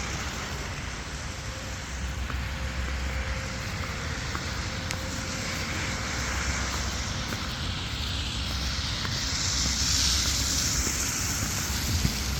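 Outdoor ambience in falling snow: a steady hiss with a low rumble of wind on the microphone, the hiss swelling louder about nine to eleven seconds in.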